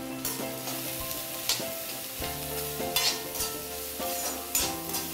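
Chopped onions sizzling in hot oil in a metal kadai while a metal spatula stirs them, scraping and clinking against the pan several times: the onions being sautéed.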